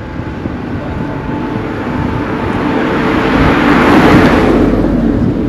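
A motor vehicle driving past on the road, its engine and tyre noise growing louder to a peak about four seconds in, then fading.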